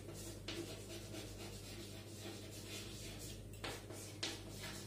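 Chalk writing on a blackboard: faint scratches and short taps of the chalk as a word is written, over a steady low electrical hum.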